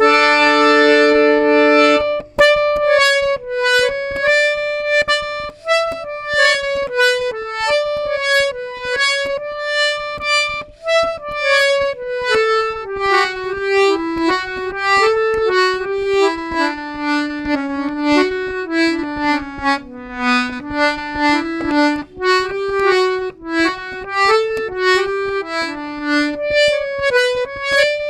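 Harmonium being played: a held chord for about two seconds, then a melody of sustained reedy notes that drifts lower in the middle and climbs back near the end.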